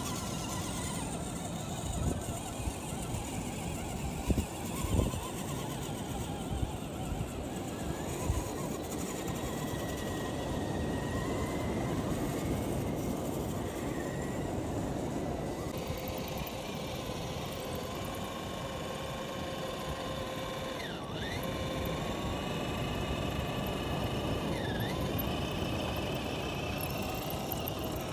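Scale RC rock crawlers' electric motors and gear drives whining as they crawl through loose sand, the pitch wandering with the throttle. A few sharp knocks come in the first eight seconds, over a steady hiss.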